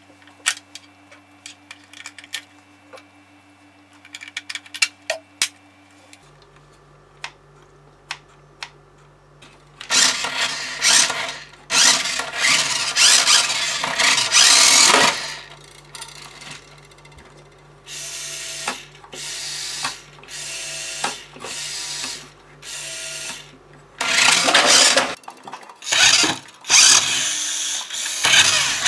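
Light clicks of a small screwdriver and plastic parts in the first few seconds. From about ten seconds in comes the whirring of the Auldey Wild Ranger X toy RC car's electric drive motor and plastic gearbox, in repeated bursts of one to three seconds as the car is driven from its repaired remote.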